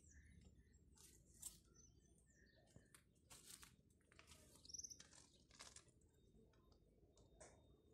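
Faint birds chirping: short, scattered chirps and tweets over a low background hush.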